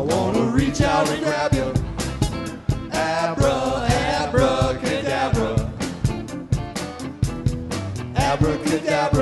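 Live band playing a song: a drum kit beats steadily under guitars, with a singing voice in phrases over the top.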